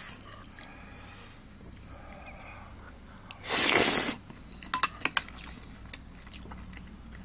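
Eating sounds with a ceramic spoon and a bowl: a few light clicks of the spoon on the bowl, and one louder noise lasting under a second about three and a half seconds in.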